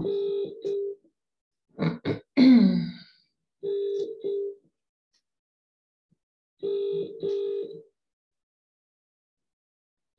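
Telephone ringing tone through a phone's speaker: British-style double rings, a steady tone about a second long repeating roughly every three seconds, while a queued call waits to be answered. A brief loud vocal sound with falling pitch comes about two seconds in.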